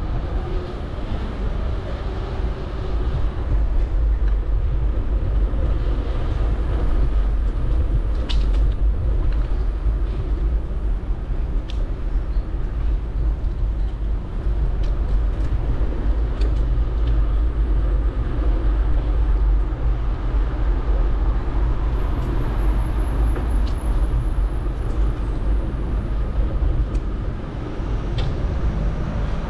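Wind and road rumble on a GoPro's microphone on a moving bicycle: a steady low rumble, with a few sharp clicks scattered through.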